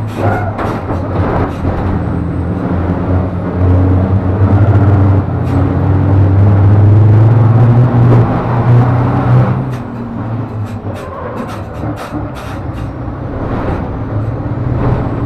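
Racing truck's turbodiesel engine running hard, heard from inside the cab, with sharp clicks and knocks throughout. The engine is loudest in the middle and eases off after about ten seconds.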